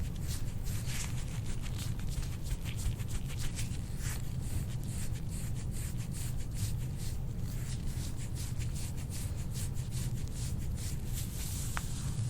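Soft-tissue massage strokes rubbing and scraping over skin, several quick strokes a second, over a steady low hum.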